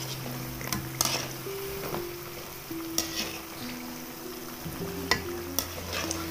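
Mathri sizzling as they fry in oil on a low flame, nearly done, while a wire skimmer stirs them. The skimmer clinks sharply against the pan about four times.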